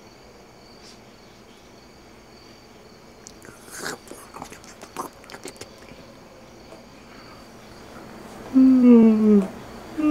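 A few light clicks in a quiet room, then near the end a man's drawn-out "ahh" falling in pitch: the build-up to a sneeze.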